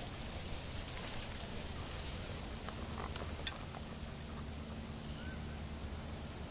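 Faint steady outdoor background noise with a low rumble, broken by one sharp click about three and a half seconds in.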